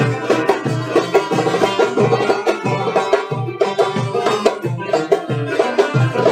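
Turkish folk music: a steady hand-drum beat under melodic instruments.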